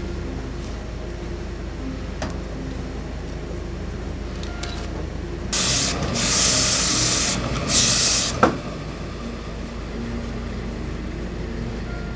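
A tailor's steam iron hisses in two bursts around the middle, the first about two seconds long and the second under a second, followed by a short squeak. The steam is being shot into a suit jacket's front to press and set its rounded shape.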